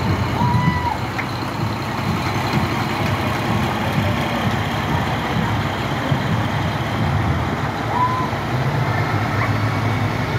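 Heavy diesel trucks, a concrete mixer truck and then other big trucks, rolling past slowly with their engines running at a steady low rumble. Two short high-pitched chirps sound, one about half a second in and one about eight seconds in.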